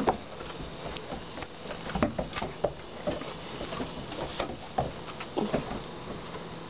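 A Great Dane puppy scuffling and tussling with a broom on wooden deck boards: irregular taps, knocks and scrapes of paws, claws and the broom, with the loudest knocks about two seconds in and again around five seconds.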